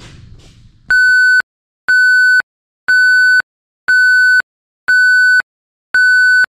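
A steady electronic beep tone, repeating about once a second, each beep about half a second long, six beeps with dead silence between them, starting about a second in.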